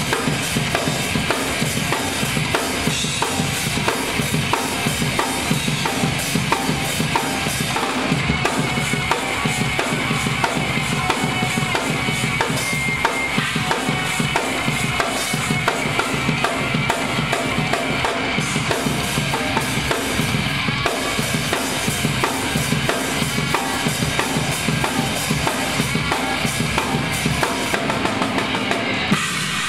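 Acoustic drum kit played live with rapid bass drum, snare and rimshot strokes under cymbals, breaking off just before the end.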